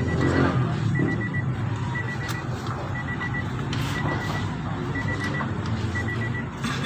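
High electronic warning beep repeating about once a second, each beep a quick stutter of short pulses, over a steady low machine hum.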